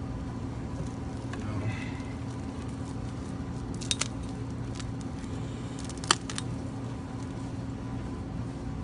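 A few small clicks and clinks from a belt being handled, the loudest about six seconds in, over a steady low hum.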